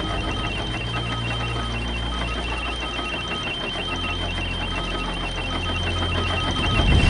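Electronic suspense sound design: a low drone that shifts pitch a couple of times, under a steady high whine and rapid, evenly repeating short beeps like a ticking mechanism.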